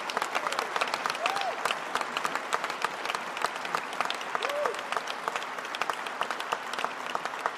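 Audience applauding steadily, with two brief rising-and-falling tones cutting through it, about a second in and again about four and a half seconds in.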